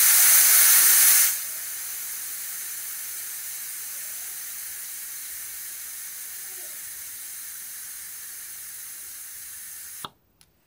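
Air hissing out of a motorcycle's tubeless front tyre through its valve stem as the tyre is let down by hand, from about 25 psi to about 15. A loud hiss for the first second, then a quieter steady hiss that slowly fades and cuts off sharply about ten seconds in.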